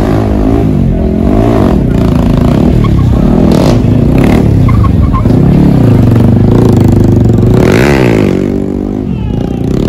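Motorcycle engines revving hard during a stunt run, the pitch climbing and dropping back several times, held high for a couple of seconds in the middle, then one last sharp rev and drop near the end.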